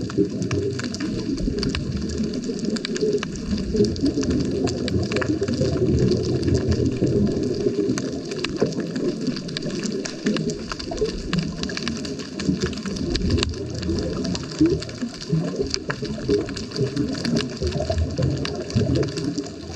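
Underwater sound heard through a GoPro's waterproof housing: a steady, muffled churning rumble of seawater with faint scattered clicks.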